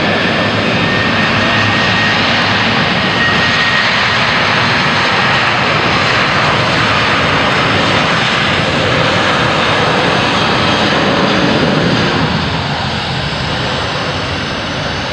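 Boeing 737-800's twin CFM56-7B turbofan engines at takeoff thrust during the takeoff roll: a loud, steady jet noise with a thin high whine a couple of seconds in. It grows a little quieter about twelve seconds in.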